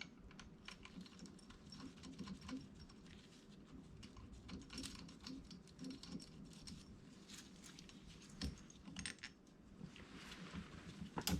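Faint, scattered light clicks and clinks of small hard objects being handled, with a sharper click near the end.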